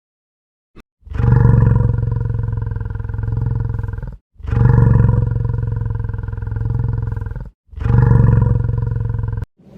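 Three long, deep roars from a large animal, each lasting two to three seconds, with short breaks between them.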